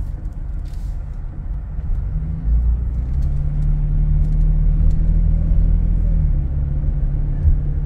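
Low rumble of a car driving, with a steady low hum that gets louder about two and a half seconds in.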